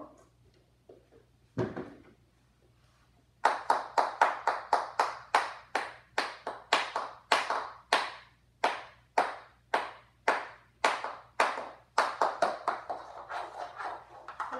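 A fast, even run of sharp hand slaps, about two to three a second, starting about three seconds in and lasting some ten seconds, after a single knock near two seconds in.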